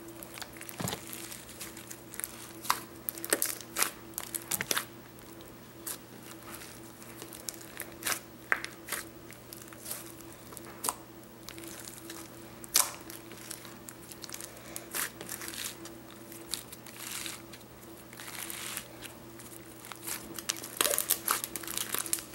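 Hands squishing and stretching a large batch of mixed slime, giving irregular sharp crackles and pops, some in quick clusters, over a faint steady hum.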